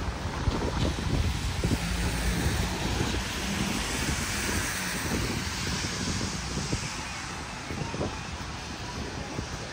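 Wind buffeting the microphone over a steady hiss of rain and traffic on wet streets; the hiss swells a little around the middle.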